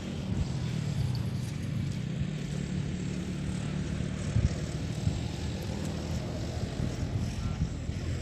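A steady low engine drone with an even pitch, with a few brief low bumps in the middle.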